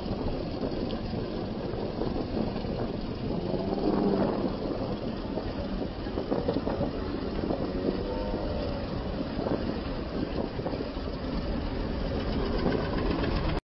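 A vehicle engine running with wind rushing and rumbling on the microphone while riding along a road, the engine's pitch rising and falling a few times.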